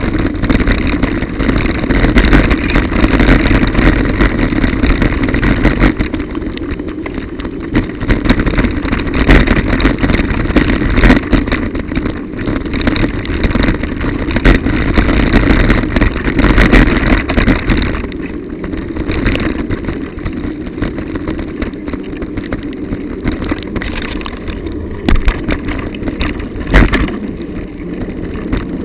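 Ride noise from a bicycle on a rough, wet, broken-up road: steady rushing of wind and tyres with frequent sharp knocks and rattles as the bike goes over bumps and holes. It eases off somewhat about eighteen seconds in.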